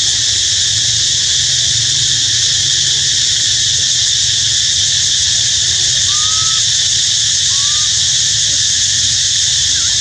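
Steady, high-pitched drone of insects, with a low rumble underneath. Two short chirps come a little after the middle.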